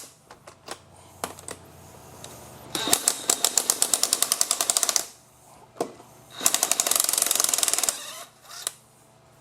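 An impact wrench hammering on wheel lug nuts in two bursts, about two seconds and a second and a half long, to loosen them for taking off a 1999 Jeep Cherokee's front wheel. A few lighter clicks come between the bursts.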